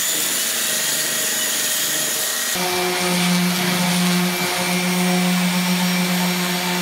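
Handheld belt sander running across pine boards. About two and a half seconds in, it gives way abruptly to a random orbital sander running on the same boards with a steady low hum.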